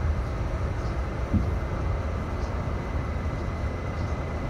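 R68A subway car running at speed, heard from inside the car: a steady low rumble of wheels on the track with a faint steady high tone, and a single knock about a second and a half in.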